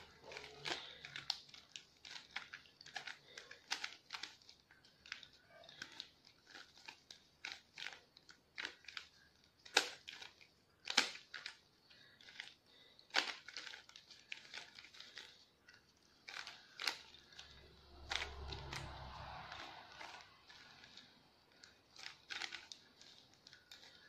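Plastic 3x3 Rubik's cube being scrambled by hand: its layers turned over and over, giving irregular quick clicks and clacks, a few a second.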